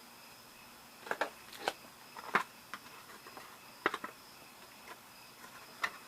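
Plastic booster packaging and miniature figures being handled: scattered short plastic clicks and crinkles, the loudest about two and a half seconds in.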